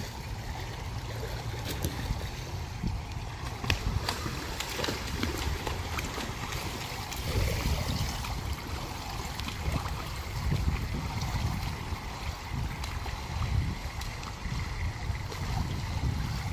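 Swimming-pool water lapping and sloshing lightly as a swimmer settles and floats face down holding the ladder, with small splashes and a fluctuating low rumble underneath.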